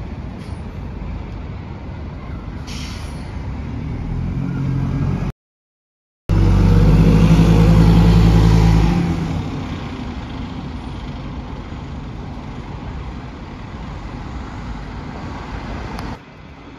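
Single-deck diesel bus pulling away and accelerating past close by, its engine note growing and loudest as it passes, then fading as it drives off. A short hiss of air about three seconds in, and a second of dead silence about five seconds in.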